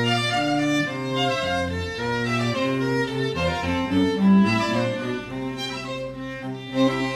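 Background instrumental music played on bowed strings, a melody of sustained notes with a lower cello-like line beneath.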